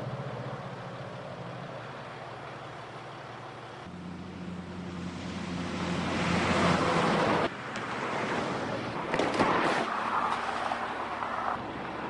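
An engine running steadily, then heavy trucks passing at highway speed, engine and tyre noise swelling to its loudest and cutting off abruptly about two-thirds in, with more passing traffic that stops sharply near the end.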